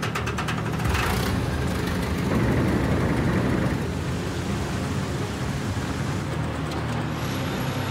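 Gold dredge wash plant running: a steady engine drone under water rushing across the sluice deck and pouring off its edge. There is a brief clatter in the first second.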